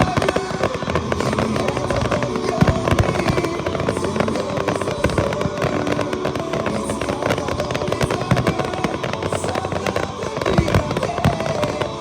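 Fireworks display going off: many bangs and crackles in quick succession, with music playing underneath.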